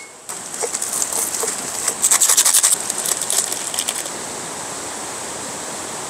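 A flurry of quick, light clicks and taps, densest about two seconds in, that stops about four seconds in. It sits over the steady rush of a mountain stream.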